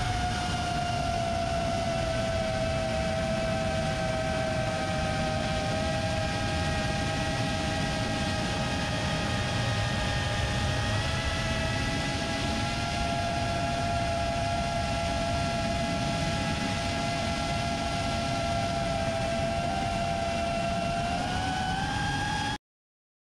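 FPV quadcopter's motors and propellers whining steadily in flight over a rush of wind, the pitch drifting slightly and rising near the end before the sound cuts off suddenly.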